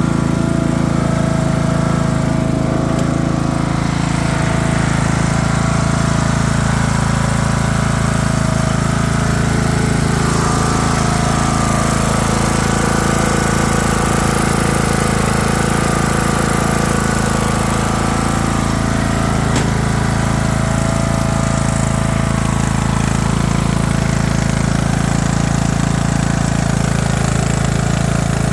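Craftsman LT3000 riding mower's engine running steadily, warming up after a cool-weather start.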